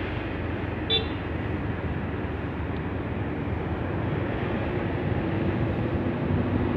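Motorcycle engine running, with wind and road noise, while riding along at steady speed. A brief high-pitched blip comes about a second in.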